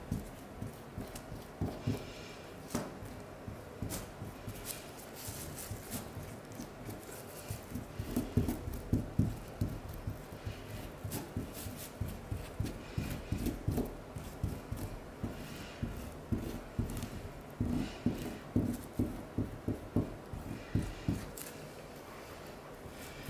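Gloved fingers rubbing and pressing grout into the joints of a mosaic, giving runs of quick soft knocks and scrapes against the tiles and board, several a second.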